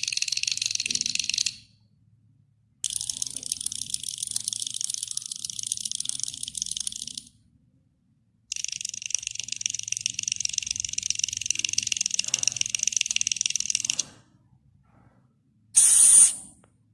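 An insect calls in a high, rapid buzzing trill, in bouts of a few seconds each with short pauses between. A brief burst comes near the end.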